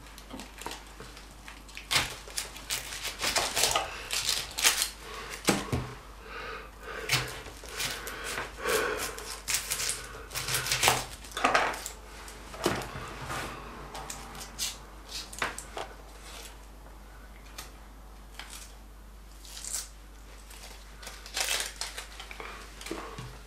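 A kitchen knife trimming and peeling onions on a plastic cutting board: irregular taps and clicks of the blade on the board, with the dry onion skins being pulled off in between.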